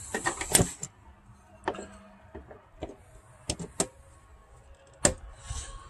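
Engine cover fasteners on a Honda 3.5 L V6 being wiggled and pressed back into place. There is a short stretch of scraping and rubbing at first, then a handful of sharp clicks spaced a second or so apart.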